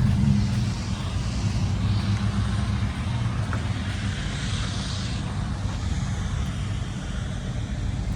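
A vehicle engine running steadily with an even low hum, easing a little about a second in.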